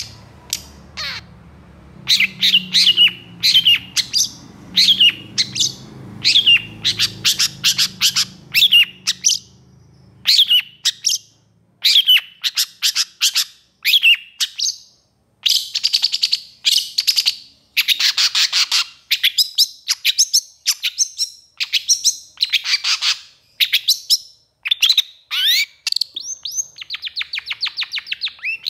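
Caged long-tailed shrike singing an agitated, rapid run of sharp, high, downward-slurred notes in quick bursts, with harsher rasping notes mixed in around the middle.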